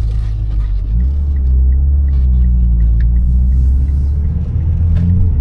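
Mitsubishi Lancer Evolution X's turbocharged four-cylinder engine heard from inside the cabin as the car pulls away: a low rumble that gets louder about a second in and rises gently in pitch as it accelerates.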